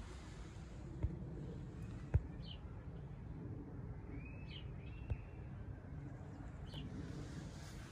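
Birds chirping outdoors, short high calls every second or two, with two longer arched notes about four to five seconds in, over a steady low rumble. Three brief knocks come at about one, two and five seconds in.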